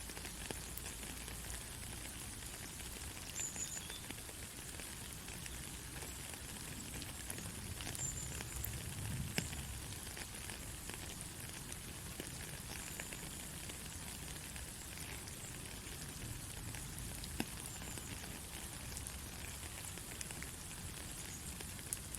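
Soft rain falling steadily: an even hiss with scattered drops ticking through it, over a low rumble.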